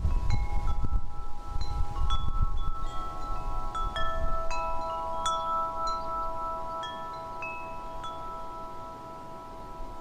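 Chimes ringing: single struck notes at scattered pitches over several long-held tones, with a low rumble during the first three seconds. The ringing fades gradually over the second half.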